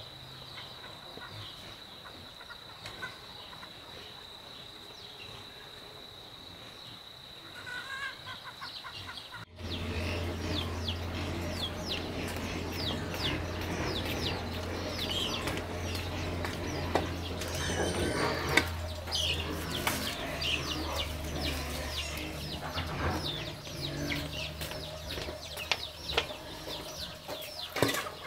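For about nine seconds, a faint steady high whine. Then, after a sudden cut, chickens clucking with many short, quick peeping chirps, over a steady low hum.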